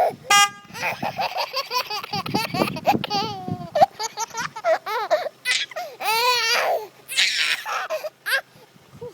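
A short car horn beep about a third of a second in, followed by a baby's repeated laughter and high squeals in bursts.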